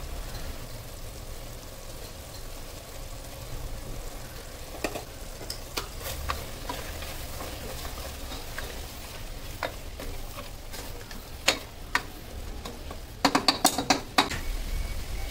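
Mutton curry sizzling in a stainless steel pressure cooker as a ladle stirs it, with scattered clicks of the ladle against the pot. Near the end a quick run of sharp knocks of the ladle on the steel pot is the loudest sound.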